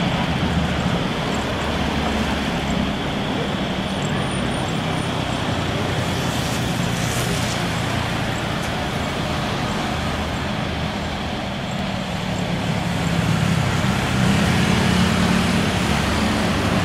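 Twin-engine widebody airliner's jet engines at takeoff thrust: a steady roar with a deep rumble, swelling again near the end.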